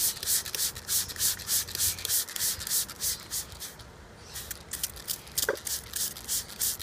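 Spray bottle squirting a fine mist of water in quick, even squeezes, about four a second, with a pause of about a second midway.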